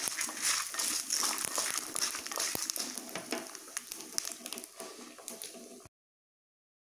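Wooden spatula stirring roasting chana dal, dried red chillies and whole spices in a kadai: a busy scraping rustle of dry seeds with many small ticks, growing fainter, then cut off to silence about six seconds in.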